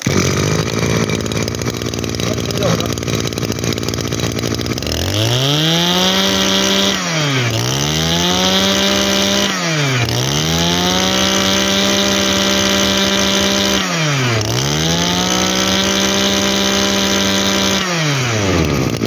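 Shindaiwa 2200 brush cutter's 22cc two-stroke engine starting and idling for about five seconds, then revved up and held at high speed four times, dropping back toward idle between runs.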